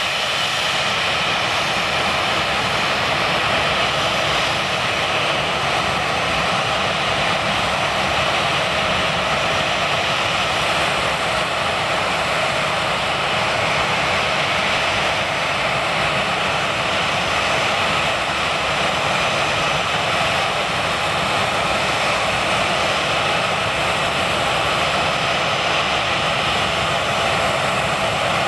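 Twin-engine narrowbody jet airliner's engines at take-off power, a loud, steady rushing noise with faint steady whining tones in it.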